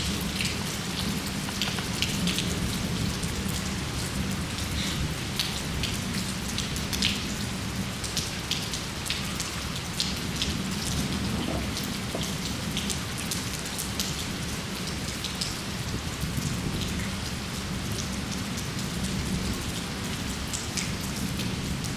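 Steady rain falling, with many separate drops striking as sharp little ticks over the continuous hiss.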